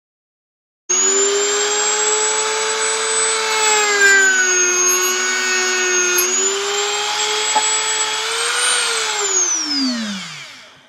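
Dremel rotary tool with a sanding point whining steadily as it grinds points into the teeth of a wooden comb; it cuts in abruptly about a second in and its pitch sags slightly in the middle. Near the end it is switched off and winds down, its pitch falling away.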